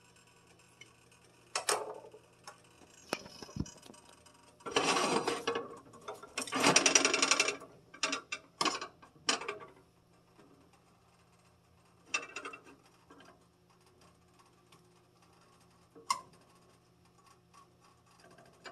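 Cookware handled on an electric stovetop: a frying pan set down on the burner with a knock, then scattered clicks and two louder rattling, rustling spells around five and seven seconds in. A faint steady low hum runs underneath.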